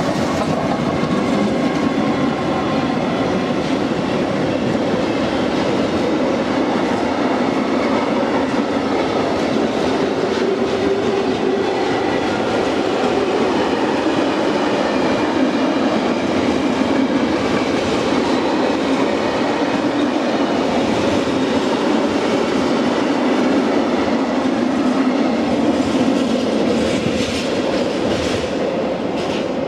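Freight train of empty stake wagons rolling past close by: a steady, loud run of wheel and rail noise as the wagons go by.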